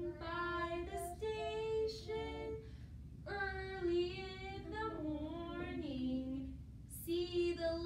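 A woman and young children singing a song together without instruments, in long held notes over a few phrases with short breaks between them.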